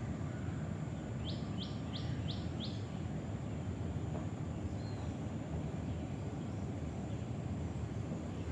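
A bird gives five quick high call notes, each dropping sharply in pitch, a little over a second in, and one faint note later. Under it runs a steady low background rumble.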